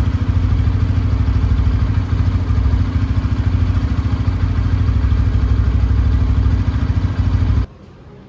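Bajaj Pulsar N160's single-cylinder engine idling steadily, then cutting off abruptly near the end.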